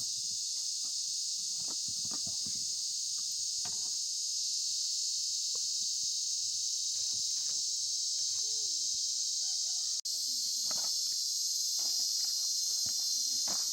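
Steady, high-pitched chorus of insects, with faint voices and small knocks underneath. It cuts out for an instant about ten seconds in and comes back a little louder.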